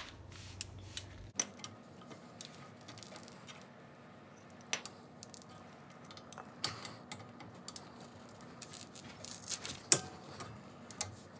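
Ratchet and socket clicking and clinking on a brake caliper bolt as it is worked loose: scattered sharp metallic clicks, the sharpest about ten seconds in.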